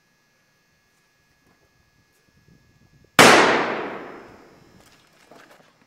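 A single gunshot about three seconds in, sudden and loud, then ringing out and fading over about a second and a half.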